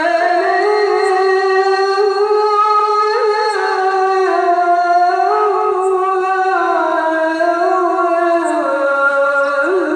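Male muezzin chanting the Islamic call to prayer (azan) into a microphone, drawing out long held notes with slow, ornamented turns of pitch.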